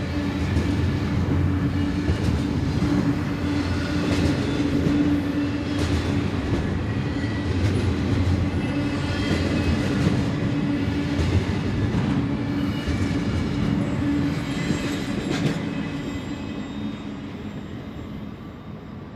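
Canadian Pacific intermodal container freight train rolling past: a steady rumble of wheels on rail with a low steady hum and repeated clicks of wheels over rail joints, fading away over the last few seconds.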